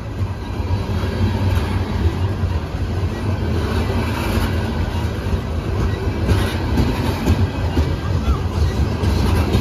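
Norfolk Southern freight train's coal gondola cars rolling past close by: a steady, loud rumble of steel wheels on rail with clattering from the trucks and couplers.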